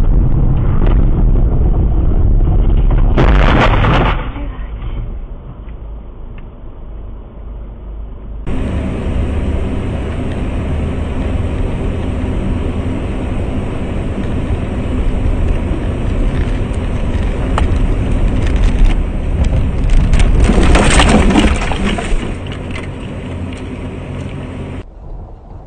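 Motor-vehicle noise, a steady low rumble, broken by one loud crash about three seconds in. After a cut, another vehicle running with a low steady hum, and a longer, louder cluster of impacts about twenty seconds in, like a collision.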